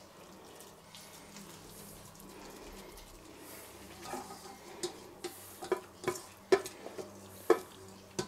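Stainless steel mixing bowl being scraped and knocked while the last fried onions are scooped out of it. Quiet at first over a faint steady low hum, then a run of about seven sharp clinks in the second half.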